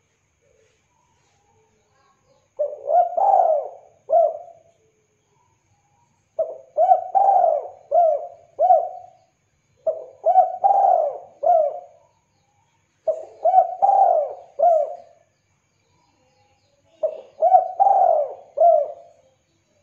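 Spotted dove cooing: five phrases of three or four coos each, about one every three to four seconds, the first starting about two and a half seconds in.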